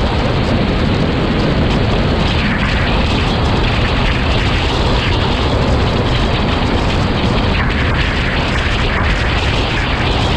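Loud, steady rush of wind buffeting the microphone of a camera on the deck of a Mini Skeeter land yacht sailing at speed, mixed with the rumble of its wheels rolling over the lakebed.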